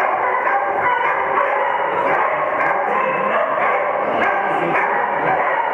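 Dog barking again and again over a continuous din in a reverberant hall.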